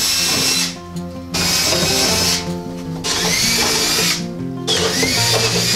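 Power drill run in four bursts of about a second each, its whine bending in pitch, over background music.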